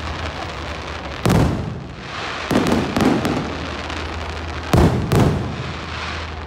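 Aerial fireworks shells bursting overhead: five sharp booms that fade out, one about a second in and then two close pairs.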